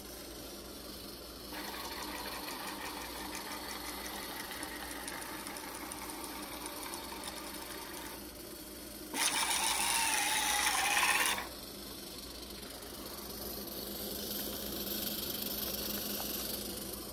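Closed-loop NEMA 17 stepper motors driving a ball-screw linear actuator, a steady mechanical whir. About nine seconds in it turns into a louder, higher whine that wavers in pitch for about two seconds, then stops suddenly. A fainter, higher whir runs near the end.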